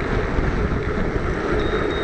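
Wind buffeting the microphone of a camera mounted on a moving Brompton folding bicycle, a steady low rumbling noise while riding.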